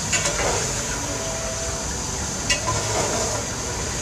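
Mutton frying on high flame in a steel pot, a steady sizzle, while a steel ladle stirs it: a few scraping clicks near the start and a sharp clink of the ladle against the pot about two and a half seconds in.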